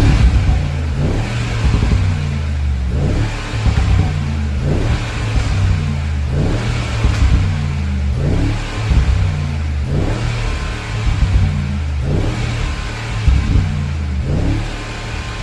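Mercedes-AMG G63's twin-turbo V8 revved repeatedly through a Milltek cat-back exhaust with particulate filter, rising about every one and a half to two seconds, with pops and crackles on the overrun as each rev drops.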